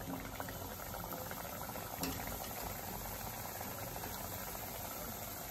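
Balushahi dough rounds deep-frying in hot oil in a kadai: a steady bubbling sizzle with fine crackling.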